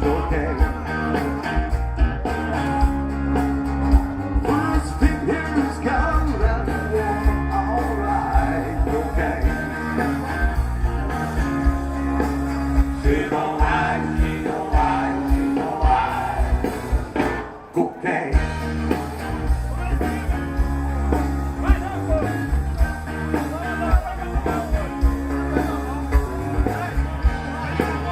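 Rock and roll song with singing and a steady beat, played from a vinyl record. It dips out for a moment about two-thirds of the way through, then carries on.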